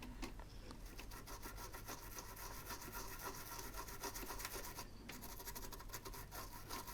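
Faint, continuous light scratching and rubbing of a small tool worked over the solder joints of a newly fitted HDMI port's pins, over a faint steady whine.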